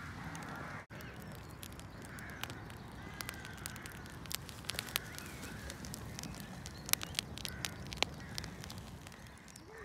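Swedish candle log fire crackling, with irregular sharp pops, a few of them much louder than the rest. Birds call faintly in the background.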